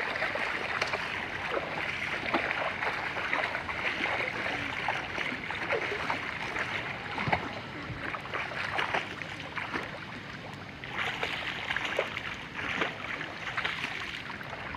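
Pool water splashing and lapping as a child in a swim vest paddles and kicks through it: a continuous run of small splashes, busier near the end.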